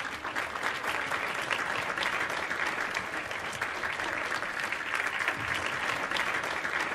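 A crowd applauding: a steady, dense patter of many hands clapping.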